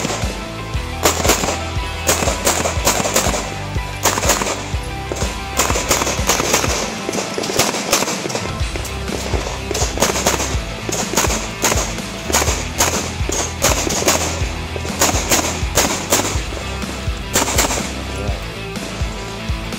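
Rapid handgun shots fired in quick strings and pairs over background music with a steady bass line.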